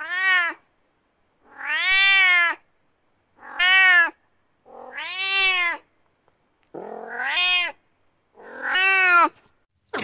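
Domestic cat meowing repeatedly: about six separate meows, each rising and then falling in pitch, with short silent gaps between them.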